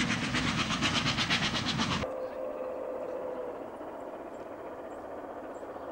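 Milwaukee Road 261, a 4-8-4 Northern steam locomotive, chuffing loudly at speed with fast, even exhaust beats, about five a second. The beats cut off abruptly about two seconds in, leaving much quieter open-air sound with a brief faint steady tone.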